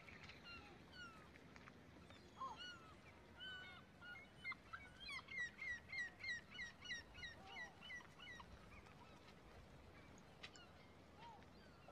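Birds calling: scattered short chirps, then a quick run of about nine falling notes at roughly three a second through the middle, faint over a low background hiss.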